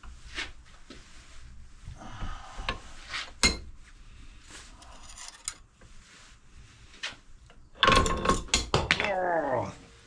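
Metal-on-metal clinks and knocks from work at a steel bench vise as its handle and jaws are worked and a metal strip is handled. About eight seconds in comes a loud metallic clatter that rattles and rings for nearly two seconds.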